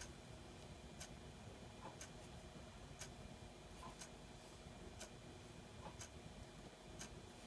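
A clock ticking faintly and steadily, one sharp tick a second, over quiet room tone.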